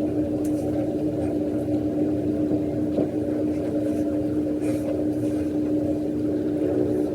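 Steady electric motor hum of a small appliance running without a break, with one strong steady tone and little high sound.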